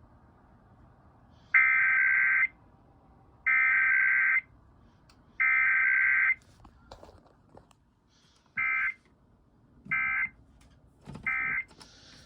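Emergency Alert System SAME data bursts: three longer bursts of screeching digital tones about two seconds apart, the header of a required weekly test, then three short bursts, the end-of-message code.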